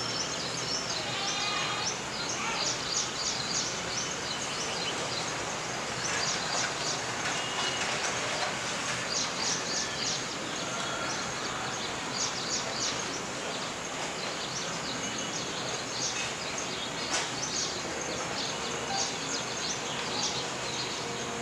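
Steady outdoor background noise with frequent short, high-pitched bird chirps coming in clusters.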